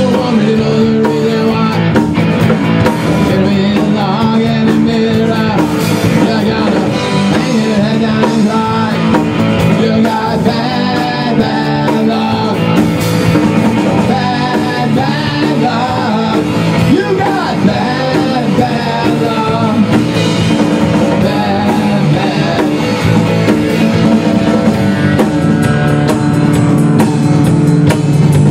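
A rock band playing live: a drum kit and electric guitars driving a steady, loud song, with a man singing lead into the mic.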